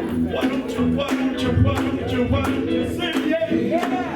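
Live gospel band and singers performing, with bass, guitar and a steady beat of drum and tambourine hits.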